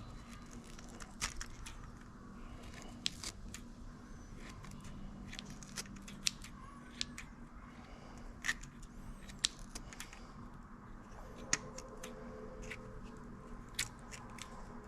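Small scissors of a Swiss army knife snipping through matted carpet fibres tangled on a fishing lure's treble hooks: a dozen or so short, sharp snips, irregularly spaced.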